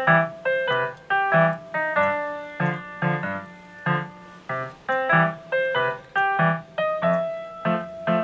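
Background music: a light melody of struck notes, about two a second, each fading before the next, over a low note on the beat.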